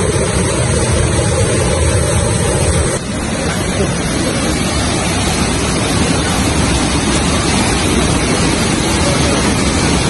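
Waterfall pouring: a loud, steady rush of falling water, its tone shifting slightly about three seconds in.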